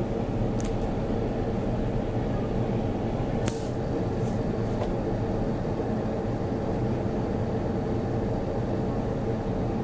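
Unexplained low droning hum from the sky, steady and unbroken, made of many held low tones over a rumble. A few faint short clicks sound in the first half.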